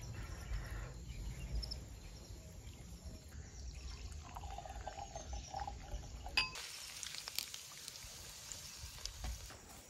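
Low handling rumble as hands rub spices into raw pomfret, then red wine pouring into a wine glass and a sharp glass clink about six seconds in. After that, pomfret sizzling in hot oil in a pan.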